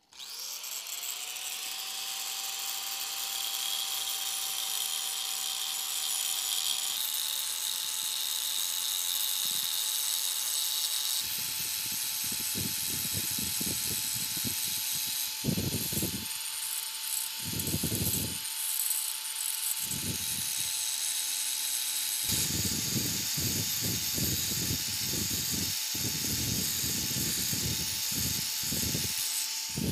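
Electric angle grinder switching on, its motor whine rising and settling to a steady pitch, then grinding a steel chopper blade with its disc, the grinding noise swelling and easing in repeated passes from about a third of the way in.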